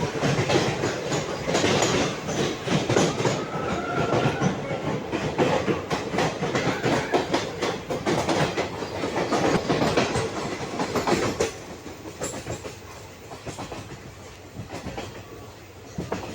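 Goa Express passenger train running, its wheels going clickety-clack over the rail joints. About two-thirds of the way through the noise drops and becomes much quieter.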